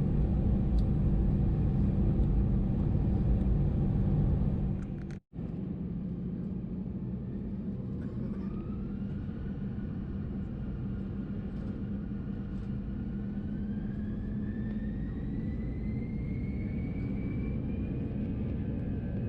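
Airbus A320 cabin: a steady low engine and air rumble, broken by a sudden cut about five seconds in, then a slightly quieter rumble in which a thin whine climbs slowly in pitch over several seconds, as the jet engines spool up.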